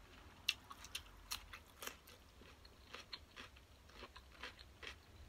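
Close-up chewing of a spicy glass noodle salad with raw cucumber: a string of irregular crisp crunches, the sharpest about half a second in.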